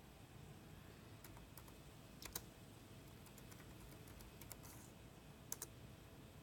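Faint, scattered keystrokes on a computer keyboard as a short command is typed, with a louder pair of clicks about two seconds in and another pair near the end.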